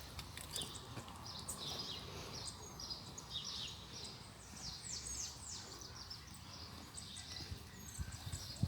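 Small birds chirping in quick clusters of short, high, downward-sliding notes over a low steady outdoor rumble.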